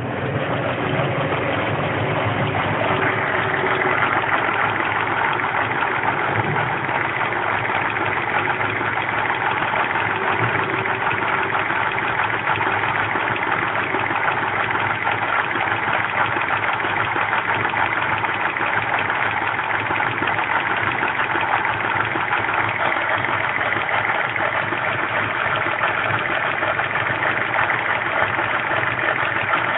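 2000 Land Rover Freelander's 1.8 K-series petrol engine idling steadily, with its fuel pump failing.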